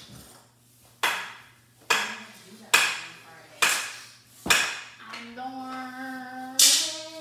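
Sharp knocks from indoor floor hockey on a hardwood floor: six of them, a little under a second apart, each ringing briefly. From about five seconds in, a voice holds a sung note.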